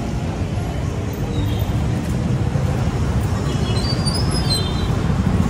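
Steady low rumble of city street traffic, with a few faint, brief high-pitched chirps about three and a half to five seconds in.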